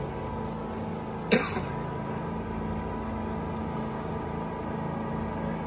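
Riding lawn tractor engines running with a steady hum, with one short sharp noise about a second in.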